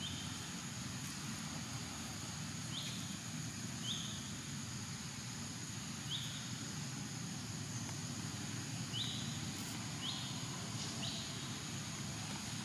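Outdoor forest ambience: a steady high hum and a low background rumble, with a short high chirp repeating at uneven intervals, about eight times.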